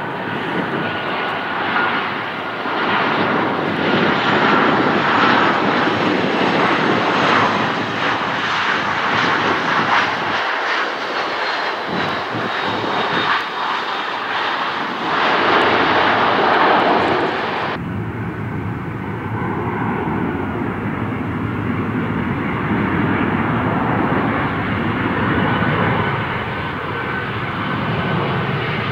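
Airplane engines running loud and steady as an aircraft moves close by, a dense rush with a faint high whine. Around the middle a thin whine falls in pitch. About two-thirds of the way through, the hiss abruptly loses its highest part.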